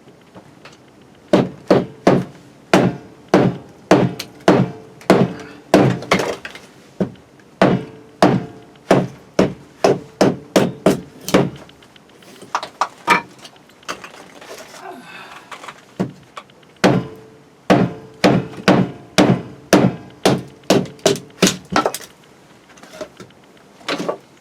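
Firewood being split by hand: a steady series of sharp wooden whacks, about two a second, in two long runs with a pause of a few seconds between them and a few more strikes near the end.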